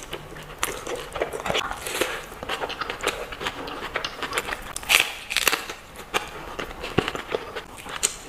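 Close-miked wet chewing and lip-smacking while eating meat off the bone by hand: a steady run of quick, irregular mouth clicks, loudest about five seconds in.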